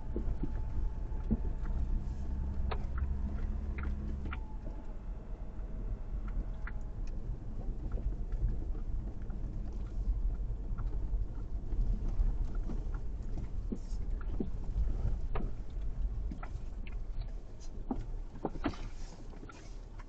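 Vehicle moving over a rough, unpaved road: a steady low rumble with scattered knocks and rattles. A faint engine hum fades out about four seconds in.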